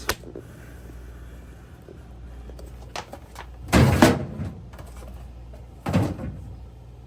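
Refrigerator crisper drawer sliding, with a loud scraping slide about four seconds in and a shorter one near six seconds, plus a few light clicks.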